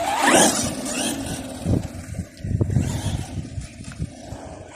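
Brushless electric motor of a Maverick Strada XT Evo RC car whining up in pitch as it accelerates, with tyre and ground noise, then running on more quietly.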